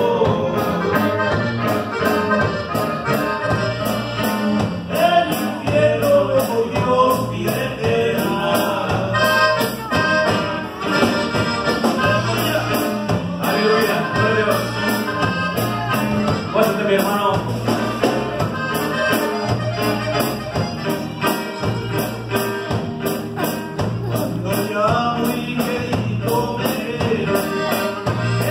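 A live church praise band playing a worship song: electric guitars and drum kit with a male singer at the microphone, in a steady beat.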